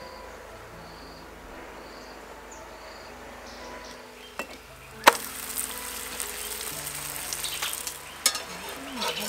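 A scallion pancake sizzling in hot oil in a cast-iron pan, starting with a sharp click about five seconds in and running on as a steady hiss, with a few clicks from the spatula near the end. Before that, only faint soft background sound.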